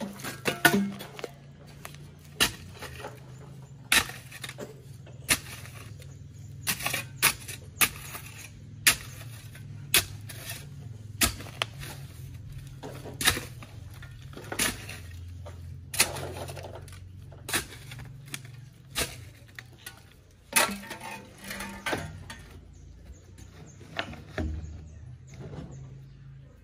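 Hand digging with a metal hoe in stony soil: sharp irregular strikes and scrapes of the blade about once a second, over a steady low hum.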